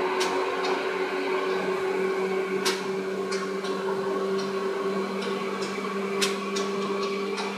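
Seibu 2000 series electric commuter train running at a steady speed, heard from inside the car: a constant low hum with running noise, and a few sharp clicks at irregular intervals from the wheels passing over rail joints.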